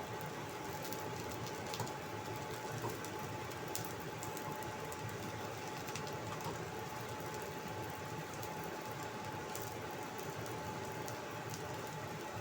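Potato and carrot fritters in egg-and-flour batter shallow-frying in oil in a thin wok: a steady sizzle with scattered small crackles.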